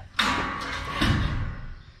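Combine engine cranking on its starter and nearly catching about a second in, then dying away. The owner puts the failed start down to weak batteries and fuel that drained back.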